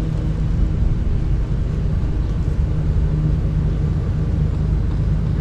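Engine of a Class C motorhome running steadily at low speed as it backs up, a deep even hum.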